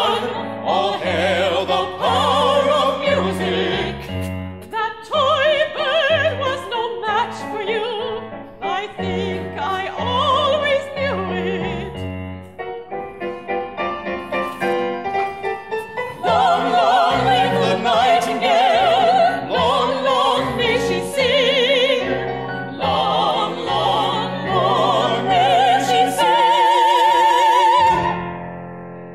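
Operatic voices singing a closing number with piano accompaniment, with vibrato. Midway the voices mostly drop out under quick repeated piano chords, and the piece ends on a long held note with vibrato that cuts off near the end.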